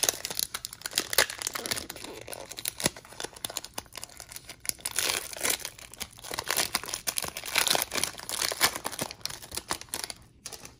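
Plastic crinkling and rustling close to the microphone as packs and trading cards are handled, an irregular crackle that stops shortly before the end.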